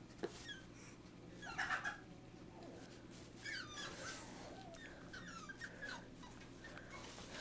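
Young puppies squeaking and whimpering: many short, high-pitched squeaks that fall in pitch, coming in quick irregular succession.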